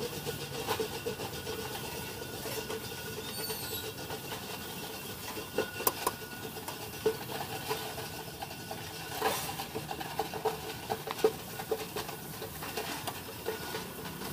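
Metal ladle scraping and knocking against a wok during stir-frying, with a few sharp clinks, over a steady engine-like hum.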